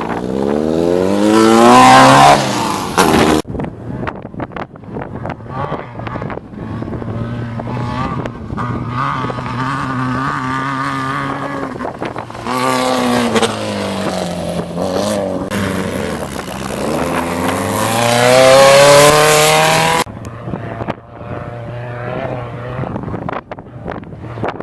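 Engines of VW-powered desert race buggies revving hard in a string of short cut-together clips. In the first few seconds the engine pitch climbs steeply and then cuts off abruptly. After a steadier stretch, another engine note dips and then climbs loudly before cutting off about twenty seconds in.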